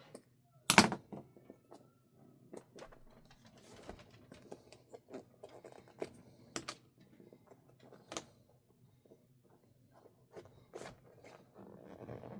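Small clicks and taps of hand work with RC wheel and tire parts on a workbench, scattered and irregular, with one sharp knock just under a second in.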